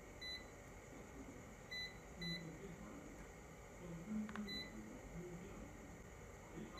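UNI-T UT136B+ digital multimeter giving short high-pitched beeps as its buttons are pressed: four beeps, two of them close together, at irregular gaps.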